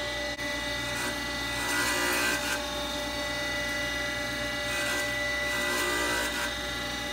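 Flywheel grinder's vitrified stone wheel grinding a hardened clutch floater plate: a steady motor whine under a rasping grind that swells and fades twice.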